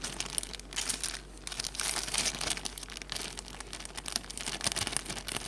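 Irregular crinkling and rustling from something being handled, dense crackles with a brief pause a little over a second in.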